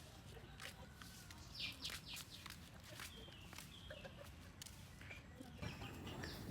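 Faint background with a few short bird calls, the clearest about one and a half to two seconds in, and scattered light clicks.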